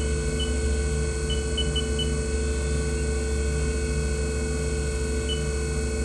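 Haas TM-1P CNC mill's spindle running steadily at 3,000 RPM: a low hum with a steady whine above it. Short high beeps from the control's keypad come several times in the first two seconds and once more near the end.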